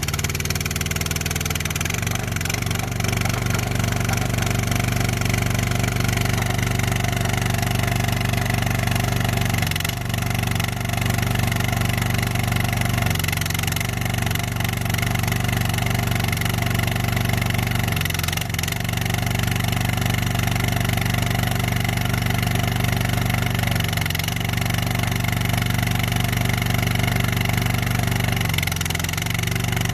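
Skid steer engine running steadily under load while driving a trencher attachment, its note sagging briefly about six times.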